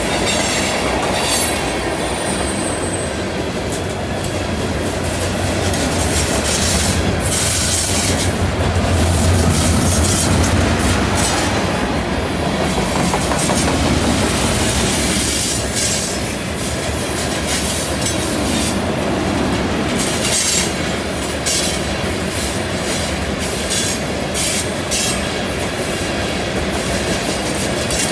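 Freight train of tank cars rolling past close by on a curve: a steady rumble and rattle of wheels over the rails, with high wheel squeal from the curve coming and going.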